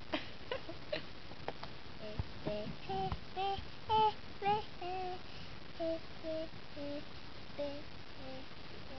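A child singing a simple tune in short separate notes, a dozen or so, the last few stepping down in pitch. A few clicks come before the singing starts.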